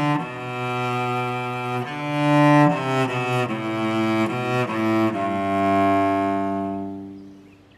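Solo cello playing a slow melody of sustained bowed notes; the last note is held and fades out about seven seconds in.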